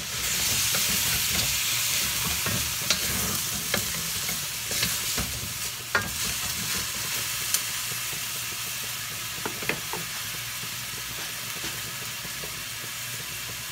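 Pork and chicken pieces sizzling in a metal wok in the juices they have released, stirred with a wooden spatula that knocks against the pan now and then. The sizzle is strongest in the first couple of seconds and eases slightly after.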